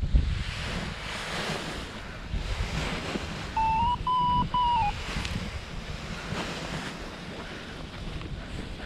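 Wind rushing and buffeting the microphone during a paraglider launch. About four seconds in, a short run of loud electronic beeps steps slightly up in pitch, then slides down.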